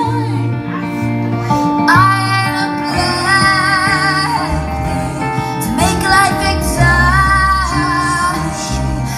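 Live band music: a woman sings a slow melody with acoustic guitar and low notes underneath. She holds two long, wavering notes, one near the middle and one near the end.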